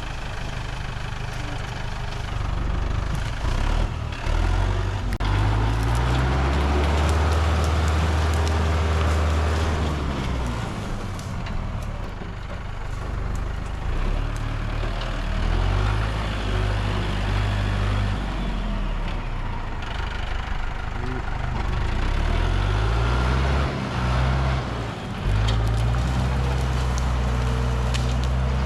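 Tractor engine running, revving up and dropping back several times.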